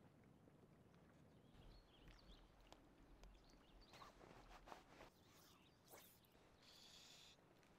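Faint lakeshore sounds: scattered small bird chirps and a few sharp crunching steps on pebbles. Near the end come two short rasping buzzes.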